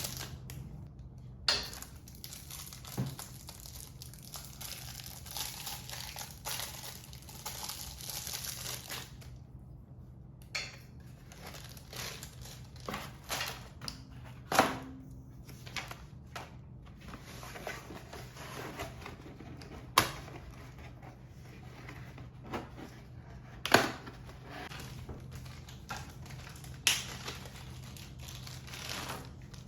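Handling noises: crinkling and rustling with scattered sharp clicks and knocks, over a steady low hum.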